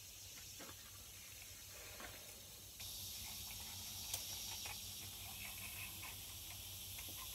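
Faint steady high-pitched hiss of outdoor ambience, growing a little louder about three seconds in, with a few faint clicks scattered through it.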